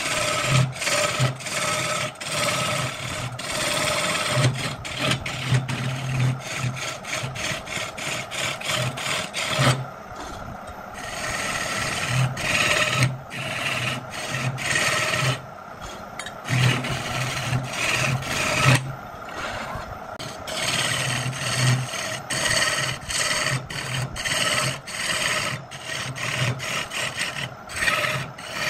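Wood being worked with quick, repeated rasping strokes, with a faint steady tone underneath and a couple of brief lulls.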